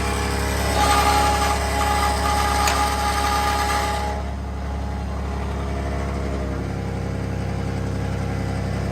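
A vehicle engine running steadily with a low hum. A higher, noisier layer over it stops about four seconds in, while the engine carries on.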